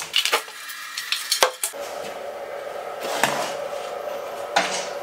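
Sharp clicks and knocks of a wooden wall panel being worked loose and pulled away from its frame: several in the first second and a half, then two more later, over a steady hum that starts about two seconds in.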